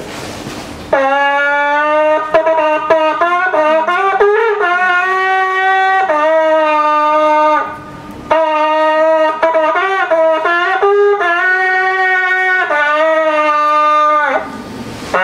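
Polish shepherd's horn (róg pasterski), a long curved horn, played solo: a tune of loud held notes with slides between them. It starts about a second in, breaks off for a breath around eight seconds in, then plays on and stops shortly before the end.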